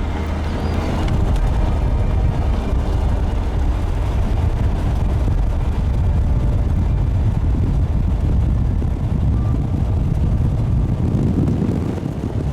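Steady low rumble of a car being driven, with engine and road noise. The tail of background music fades out about a second in.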